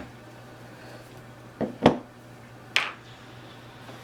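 Small steel revolver parts and tools clicking and knocking as they are handled and set down. Two quick knocks come about a second and a half in, the second the loudest, and a single sharper click follows about a second later.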